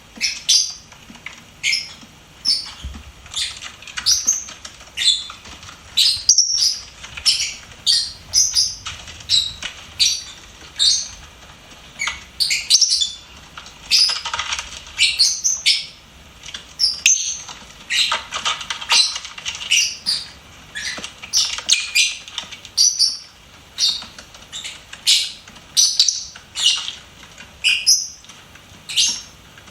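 Lovebird chirping: a continuous run of short, high-pitched chirps, about two a second.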